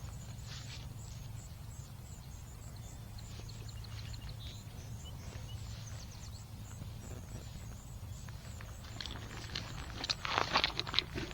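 Footsteps along a trail over a steady low rumble, with a few louder, sharper steps about ten seconds in.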